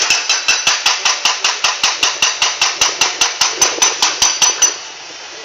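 Rapid, evenly paced metallic striking, about five strikes a second, each with a short ringing tone, stopping near the end.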